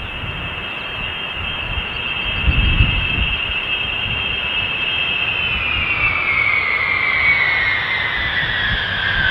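B-52H Stratofortress's eight TF33 turbofan engines whining as the bomber comes in low with gear down on approach. The whine grows louder and drops steadily in pitch from about five seconds in as the aircraft passes, with a brief low rumble about two and a half seconds in.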